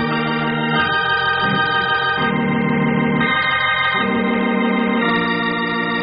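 Organ music playing held chords that change every second or so: a musical bridge in an old-time radio drama.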